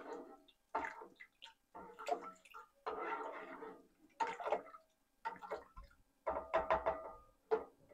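Plastic ladle stirring and sloshing a thin, watery sauce in a cooking pot, in short swishes about once a second that come a little faster near the end.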